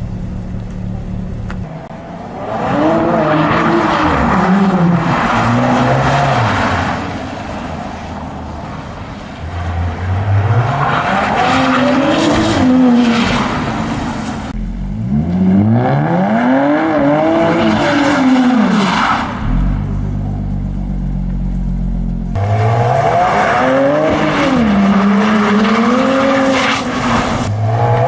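Jaguar F-Type coupe's V6 revving hard in four long bursts while spinning donuts, the engine note rising and falling within each burst over the hiss of tyres spinning and sliding on wet concrete. Between bursts the engine drops back to a low steady drone.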